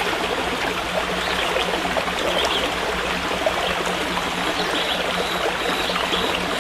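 A forest stream running steadily, a constant rush of trickling water.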